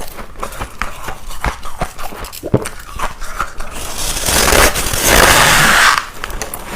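Close-up crunching and chewing of ice: a run of small sharp cracks, then about four seconds in a louder, dense grinding crunch lasting about two seconds.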